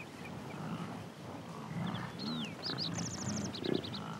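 American bison grunting, a series of low repeated grunts. A small songbird sings a short trilling phrase about two seconds in.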